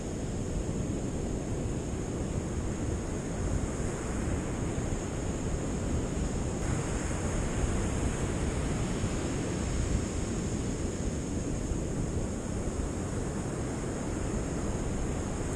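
Ocean surf breaking steadily on a sandy beach, with wind rumbling on the microphone.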